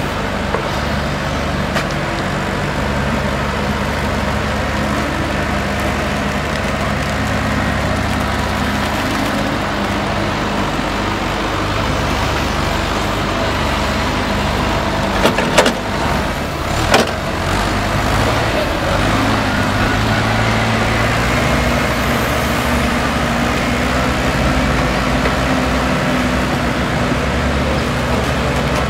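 Diesel engine of a wheeled excavator running steadily as it digs out pond sludge, with two sharp knocks about halfway through as the loaded bucket is emptied into a steel dump trailer; the engine note rises a little after the knocks.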